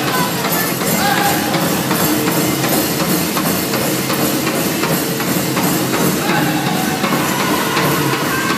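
Powwow drum group singing a grand entry song over a steady beat on a large powwow drum.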